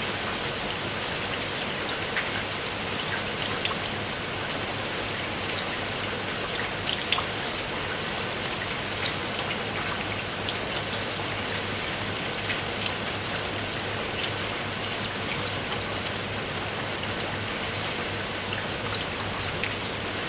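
Heavy rain falling steadily, with single drops striking close by as many short sharp ticks over a dense hiss. A steady low hum runs underneath.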